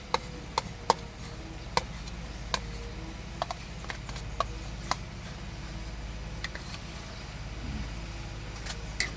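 Metal ladle knocking and scraping against a plastic bowl and the rim of a cooking pot as ground peanut paste is scraped in: sharp clicks every half second or so for the first five seconds, then a couple more near the end, over a steady low hum.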